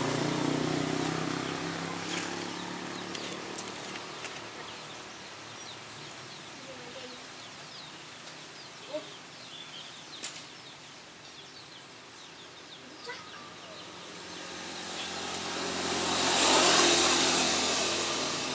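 Outdoor background: an engine fades away over the first few seconds, then a quiet stretch with scattered bird chirps and a few small clicks. Near the end a passing vehicle swells up to its loudest about two seconds before the end, then starts to fade.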